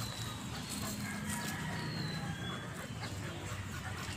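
Chickens clucking faintly, with a few thin, high bird chirps.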